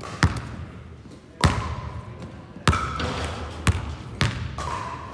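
Basketballs bouncing on a sports hall floor: about five sharp, irregularly spaced thuds, each echoing in the large hall.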